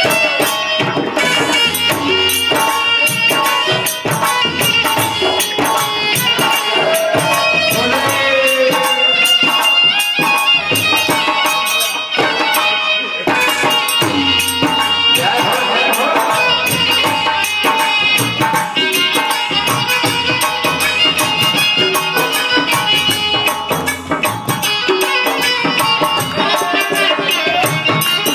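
Live devotional bhajan music: harmonium and violin carry the melody over jingling hand percussion keeping a steady beat.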